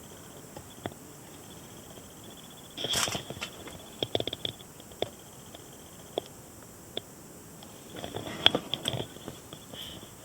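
Scattered clicks and knocks of hard objects being handled, with a louder rattling clatter about three seconds in and another near the end.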